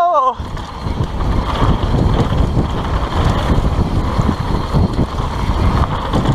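Wind buffeting the microphone of a camera on a mountain bike descending fast, with the tyres rumbling over the dirt trail.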